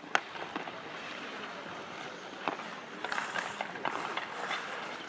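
Ice hockey skate blades scraping across the ice, with scattered sharp clacks of sticks striking the puck, the loudest just after the start.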